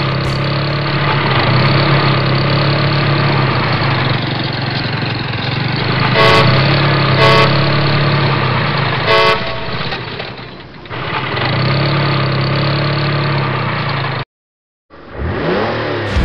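A horn sounds three short blasts, the first two about a second apart and the third two seconds later, over a steady engine-like rumble. The sound drops out briefly near the end.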